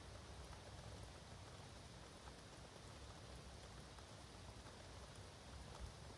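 Faint, steady light rain, with a few single drops ticking.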